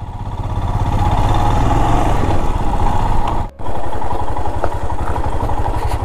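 Motorcycle engine running under way, rising in the first second as the bike pulls off, with a brief break in the sound about three and a half seconds in.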